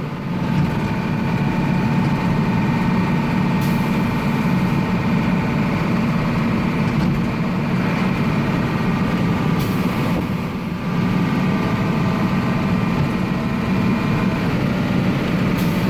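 Kodiak medium-duty water truck driving on the road, heard from inside the cab: a steady engine and road drone that eases off briefly about ten and a half seconds in.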